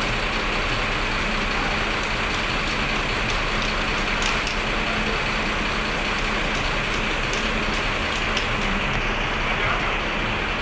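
Steady hum of an idling bus engine, mixed with the hiss of a Pilox aerosol spray-paint can being sprayed onto a bus bumper; the higher hiss drops away near the end.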